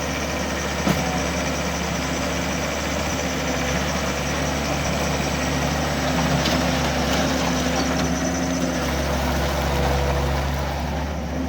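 John Deere 325 skid steer engine running steadily, with one sharp click about a second in.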